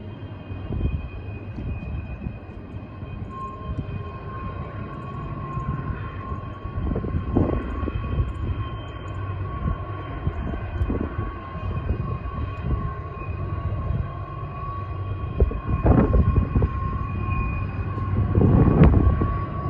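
Double-stack intermodal well cars rolling past on a curve: a steady rumble and clatter of steel wheels on rail, with a thin steady squeal from the wheels starting a few seconds in. Several heavier clanks come through, loudest near the end.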